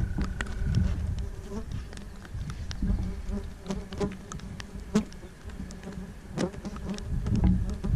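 Flies buzzing close around the microphone: a steady, wavering hum. Scattered small clicks and a low wind rumble run under it.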